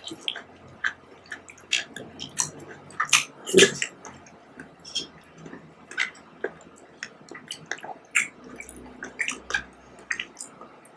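Close-up eating of jelly: a metal spoon scooping jelly in a plastic cup, with wet squelches and chewing sounds, an irregular string of short clicks, the loudest about three and a half seconds in.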